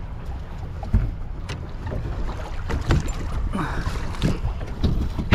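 Wind rumbling on the microphone over water lapping against a small boat's hull, with a few sharp knocks.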